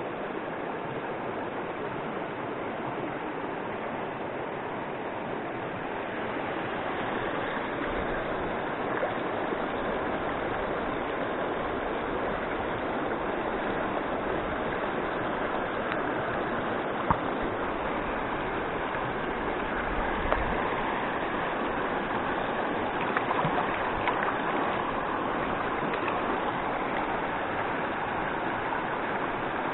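River water rushing over stones, a steady noise that grows slightly louder about seven seconds in, with a few brief clicks close by.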